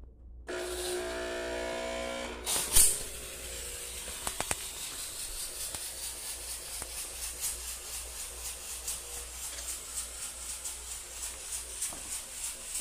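700 W fog machine running: its pump hums steadily for the first couple of seconds, there is a sharp click, and then a steady hiss with a rapid regular pulsing as fog jets out of the nozzle.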